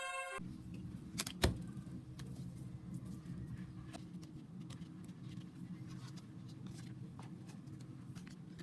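Hands handling album packaging: a sharp click about one and a half seconds in, then light scattered taps and rustles, over a steady low hum. Background music cuts off at the very start.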